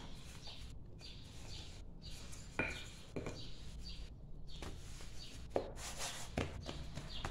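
Dough being worked on a granite worktop with a wooden rolling pin and hands, folded and pressed flat, with a few soft knocks on the counter, the sharpest about two and a half and five and a half seconds in.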